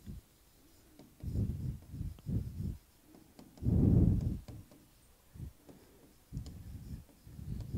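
Chalk writing on a blackboard: a run of short, dull scraping strokes, about half a dozen, the loudest about four seconds in.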